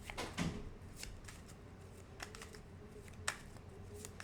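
Tarot cards being shuffled and handled: a dry rustle with scattered sharp snaps and flicks, the loudest a little past three seconds in.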